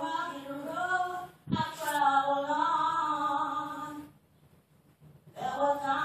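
A woman singing a solo into a microphone, unaccompanied, in long held phrases. There is a short thump between the first two phrases, and she pauses for just over a second near the end before the next phrase.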